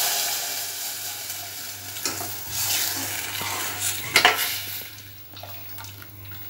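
Buttermilk sizzling in hot spiced oil in a steel pot as it is tempered; the sizzle fades as it settles. A steel spoon stirs through it, clinking against the pot a few times, about two and four seconds in.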